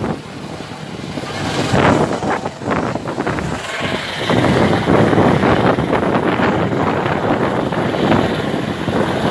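Helicopter flying overhead, loud rotor and engine noise that grows louder about four seconds in.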